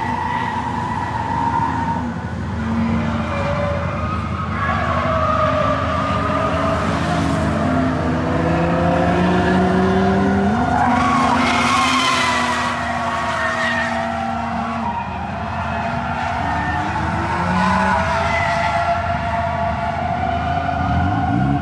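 Drift cars sliding round a track, engines revving up and down and tyres squealing, with several cars running at once so the engine notes overlap and rise and fall.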